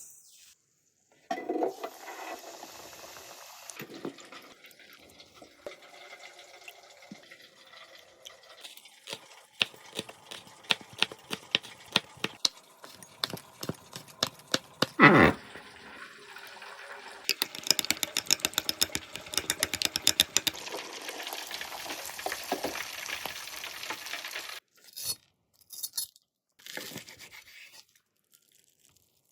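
Kitchen sounds of fried octopus being made: wet stirring and liquid handling with scattered clicks, then a long spell of dense crackling that ends suddenly about 24 seconds in.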